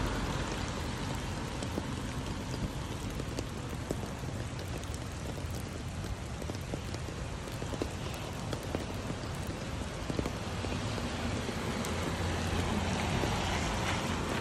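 Steady rain falling, a dense hiss of many small drop ticks, with a low rumble growing slightly near the end.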